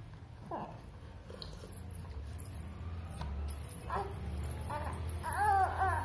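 An infant cooing in short, high-pitched vocal sounds that rise and fall, a few scattered through and a run of them near the end, over a low steady hum.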